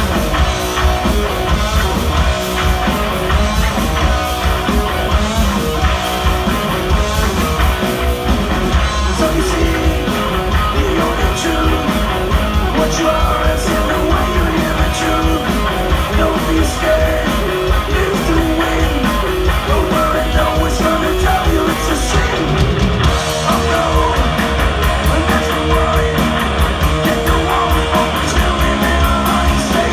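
Live rock band playing loud: distorted electric guitar, bass guitar and drums, with a singer. The song changes section a little after two-thirds of the way through.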